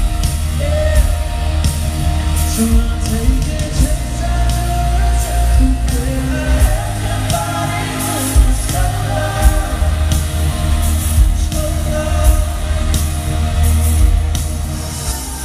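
Live pop band playing in an arena with heavy bass and a steady drum beat, and singing over it.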